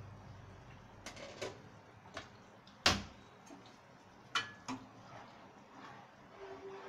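A few light clicks and knocks on a gas stove being turned off, with one sharper knock about three seconds in.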